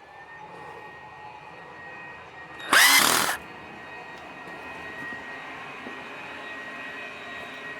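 Wood lathe motor spinning up and running steadily with a high whine while turning a metal faceplate. About three seconds in, a brief loud screech as the cutting tool bites into the metal.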